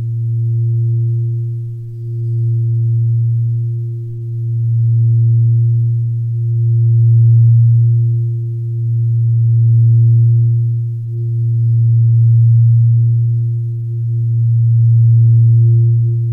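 A low, sustained drone with a fainter higher overtone above it, swelling and easing about every two and a half seconds. It is the meditative background sound of a relaxation session.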